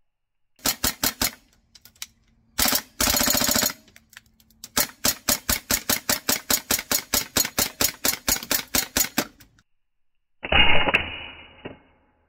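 Tokyo Marui B&T SPC9 gas blowback airsoft carbine firing: a quick string of shots, a short full-auto burst, then steady rapid semi-auto shots at about four a second. Near the end comes a separate rushing noise that lasts about a second and fades.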